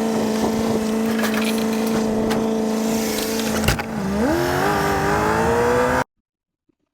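A vehicle engine running at a steady pitch, with a sharp knock about halfway through. The pitch then dips briefly and climbs steadily as the vehicle accelerates, and the sound cuts off suddenly near the end.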